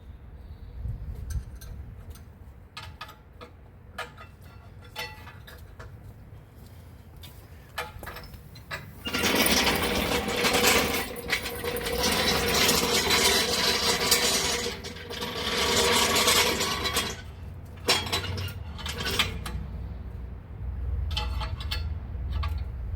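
Metal parts being handled: scattered clinks and knocks, then a louder stretch of continuous metallic rattling and scraping lasting several seconds, followed by a few more clinks.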